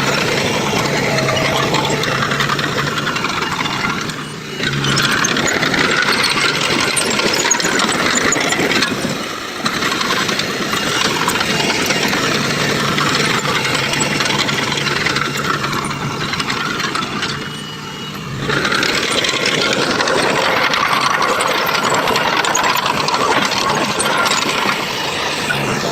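Heavy diesel construction machinery running, with a steady engine drone and metallic rattling and clanking. The sound drops briefly three times, at about 4, 9 and 18 seconds in.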